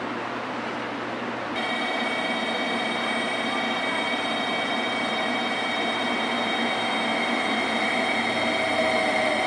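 A JR Kyushu 885 series 'Sonic' electric limited express pulling into the platform. From about a second and a half in, its rumble comes with several steady high ringing tones and grows slowly louder. Before that there is only low platform noise.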